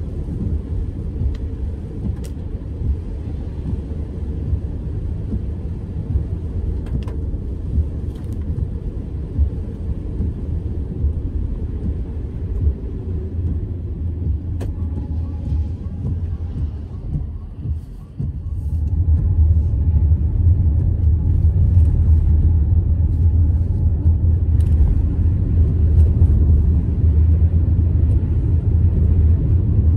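Car cabin road noise while driving on a rain-wet road: a steady low rumble from the engine and tyres. It dips briefly about eighteen seconds in, then comes back louder as the car picks up speed again.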